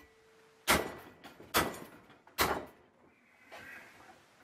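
Hammer blows on a metal bar clamped in a bench vise: three sharp strikes about a second apart, each ringing briefly, the first the loudest.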